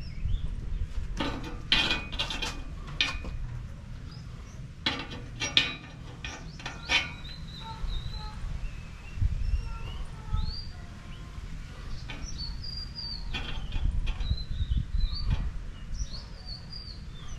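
Steel pieces clinking and tapping against steel security bars in two short clusters, about a second in and again around five to seven seconds in. Birds chirp several times through the second half.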